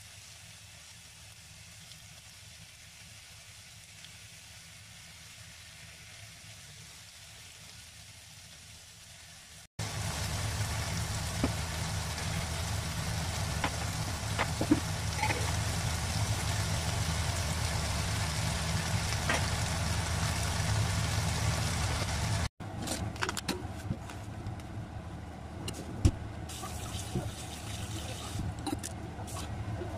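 Pieces of miso-marinated chicken sizzling in a frying pan, faint at first and much louder from about ten seconds in, over a steady low hum. Near the end, a few sharp clicks and clinks of kitchen utensils.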